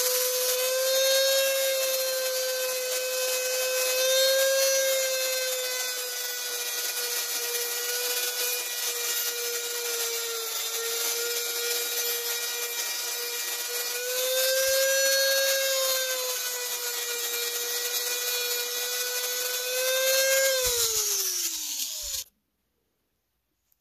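Handheld rotary tool with a sanding drum running and grinding finger grooves into the brass and wood handle of a Buck 110 folding knife: a steady high whine that dips and rises slightly in pitch as the drum is pressed in. Near the end the motor winds down with a falling pitch and stops.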